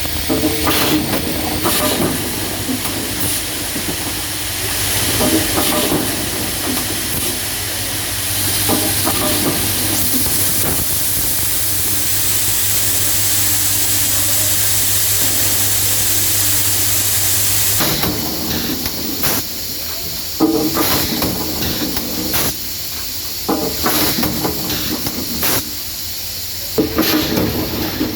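Automated hardware assembly machine running: a steady hiss of air, with repeated short clicks and knocks of parts and actuators. A steady low hum, as from vibratory bowl feeders, stops about two-thirds of the way through.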